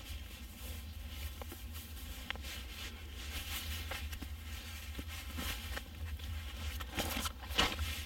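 Soft rustling of a wool hiking sock being pulled onto a bare foot and of clothing moving, with scattered light clicks and a louder rustle about seven seconds in.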